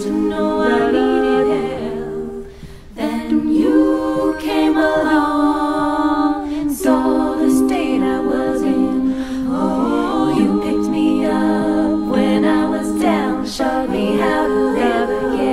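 A small vocal group singing a cappella in close harmony, holding long chords, with a short break between phrases about two seconds in.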